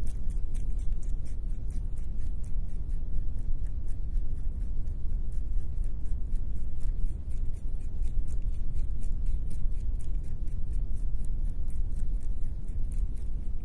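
Pet rabbit chewing fresh dill: a fast, even run of crisp chewing clicks, about five a second, over a steady low rumble.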